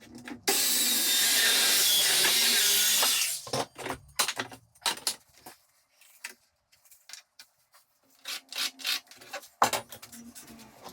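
Power saw cutting through shutter timber in one burst of about three seconds, followed by scattered knocks and clatters of the wood being handled, with a short quiet spell between them.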